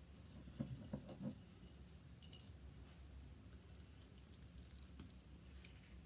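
Faint taps and scraping of chalk paste being stirred in its small jar, freshly thinned with a little water, over a low steady hum.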